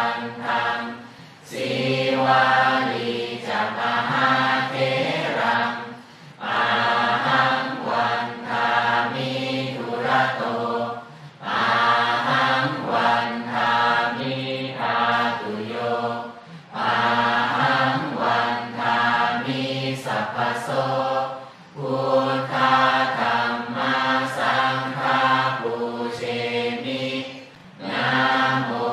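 Buddhist chanting by many voices in unison, a steady recitation in phrases of about five seconds, each followed by a brief pause for breath.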